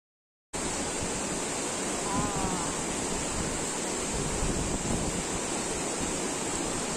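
Silence for the first half second, then the steady rush of a shallow river running fast over rocky rapids.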